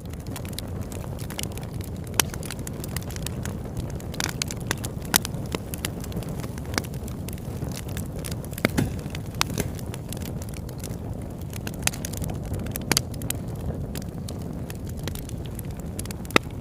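Campfire burning, a steady low rumble with irregular sharp crackles and pops from the burning wood.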